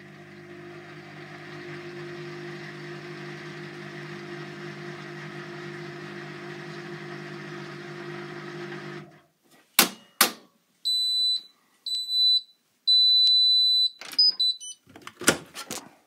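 Hotpoint NSWM 843C washing machine running with a steady hum for about nine seconds until it stops. Then come two sharp clicks, a run of high electronic beeps marking the end of the cycle, and a few more clicks near the end.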